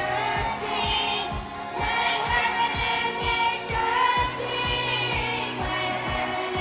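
Upbeat pop-style song with a steady beat, sung by a group of voices.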